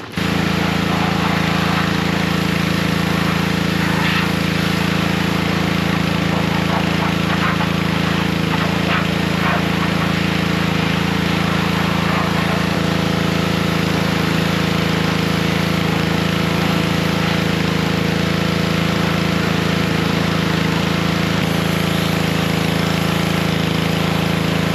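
Pressure washer running steadily, its motor and pump humming under the hiss of the water jet as it blasts the truck's wheel wells and suspension clean.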